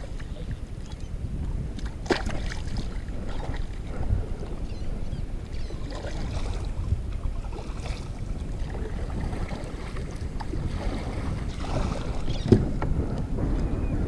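Wind rumbling steadily on the microphone of a kayak-mounted camera, with a few short knocks, the sharpest one near the end.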